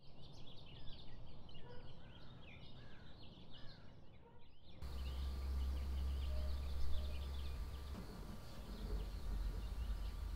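Birds calling outdoors: a busy run of short chirps that sweep up and down. About five seconds in it changes to a low rumble of wind on the microphone, with fainter bird chirps still behind it.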